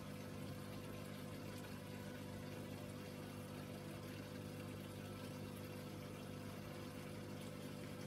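Aquarium pump humming steadily, with a faint, even wash of moving water.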